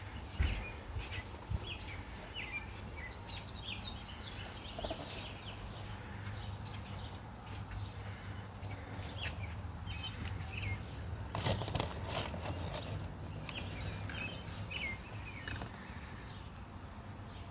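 Small birds chirping on and off over a steady low hum, with a burst of rustling and light knocks about two-thirds of the way through as paper nesting tubes are handled and pushed into a mason bee house.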